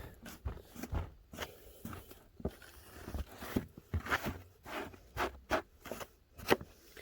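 Footsteps crunching on icy snow, a string of irregular crunches and scrapes.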